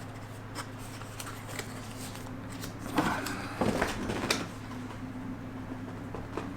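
Cardboard packaging being handled and opened, with a flurry of rustling and knocks about three to four and a half seconds in, over a steady low hum.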